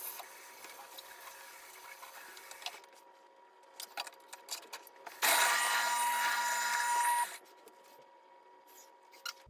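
Light clicks and knocks of dishwasher parts being handled, then a kitchen tap running for about two seconds while a clogged dishwasher part is rinsed clean.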